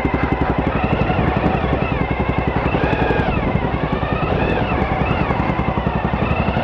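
Suzuki V-Strom 1000's V-twin engine running at low revs while engine braking down a hill, its note rising and falling a few times midway.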